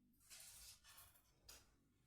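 Near silence: room tone with a few faint, brief noises about half a second in and again about a second and a half in.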